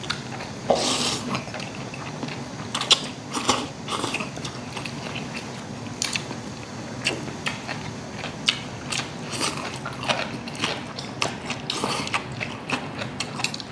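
People eating naengmyeon (cold buckwheat noodles): irregular clicks of chopsticks against stainless-steel bowls, with slurping and chewing.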